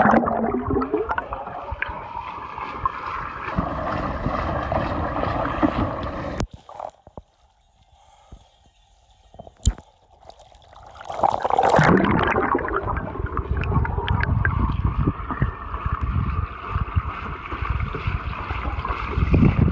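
Underwater sound through a smartphone microphone in a swimming pool: a muffled rush of water and bubbling. About six seconds in it drops to a quiet stretch with a few small splashes and clicks as the phone comes up above the surface. Near the middle it surges back into loud underwater churning as the phone goes under again beside the swimmer.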